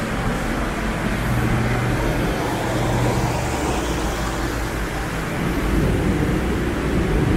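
Steady rumble and hum of a metro station's underground pedestrian tunnel. A low drone in it drops away about halfway through.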